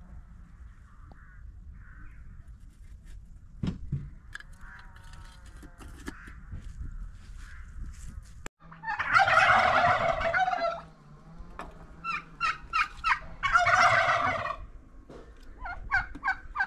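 Domestic turkey gobbling: a loud gobble a little past halfway, a run of quick short calls, then a second loud gobble, with more short calls near the end.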